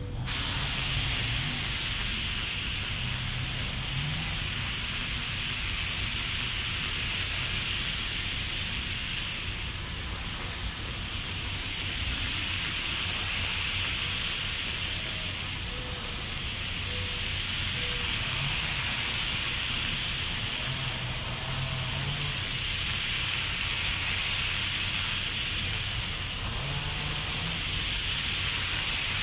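Compressed-air paint spray gun hissing steadily as it sprays primer onto a car body, the hiss easing slightly a few times.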